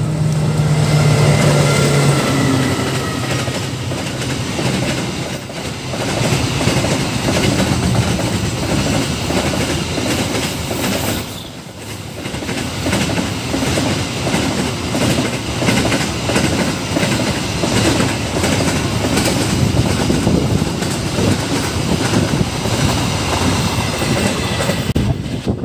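Diesel-hauled freight train passing close: the locomotive's engine drone is loudest in the first few seconds, then a long string of container and flat wagons rolls by with a steady rumble and the clickety-clack of wheels over the rail joints.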